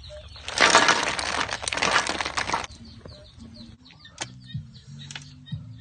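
Snail shells clattering into a metal pan as a basketful is poured in, a dense rattle of many small hard knocks lasting about two seconds. After that, birds chirp repeatedly, with a few single sharp clicks.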